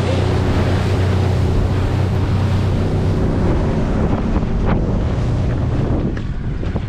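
Motorboat under way in chop: heavy wind buffeting the microphone over the rush of water, with the boat's engine humming low until about halfway, when its tone fades. A few short knocks come in the second half.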